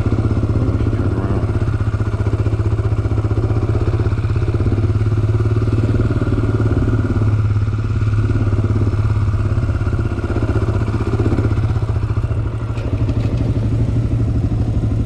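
Honda 400 sport quad's single-cylinder four-stroke engine running steadily under way on a sandy trail, heard from on the quad itself. The engine eases off briefly about twelve seconds in, then picks up again.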